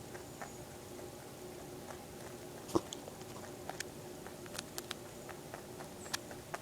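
Pet rabbit eating Cheerios, with scattered small crunching clicks as it bites and chews the dry cereal. One crunch just before the middle is louder.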